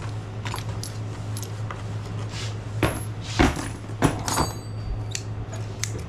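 Metal hand tools clinking and clattering as they are picked through and sorted, with a few louder clanks about three to four seconds in, one of them ringing briefly. A steady low hum sits underneath.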